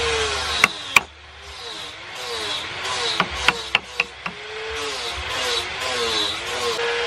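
Hand carving tools knocking against a wooden carving: two sharp knocks about a second in, then a quick run of five more around three to four seconds in. Underneath runs a motor hum that wavers up and down in pitch and drops away briefly after the second knock.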